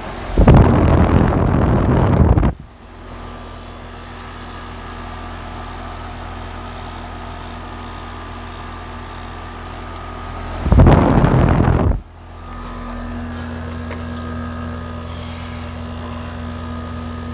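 2013 4-ton Rheem heat pump with a Copeland scroll compressor running in cooling mode: a steady hum from the compressor and the outdoor fan. Two loud bursts of rushing noise break in, one about a second long near the start and one about eleven seconds in.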